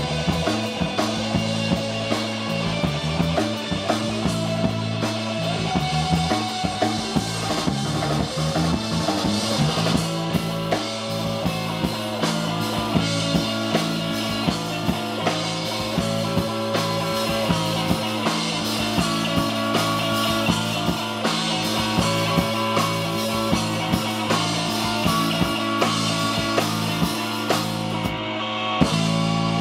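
A small live band playing rock-style music: a drum kit keeping a steady beat under guitar.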